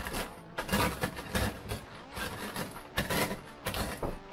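Rolled tortilla chips crunching and crackling inside a plastic zip-top bag as a glass bottle is rolled over them, with the bag crinkling: the chips are being crushed into a powder. The crunches come in uneven strokes, about two a second.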